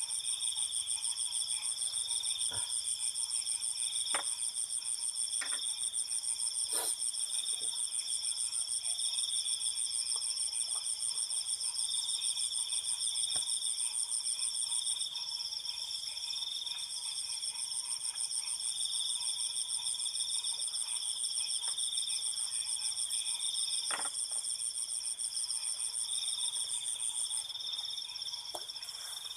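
Night insects, crickets, trilling in a steady chorus at several high pitches, with a few faint clicks scattered through it.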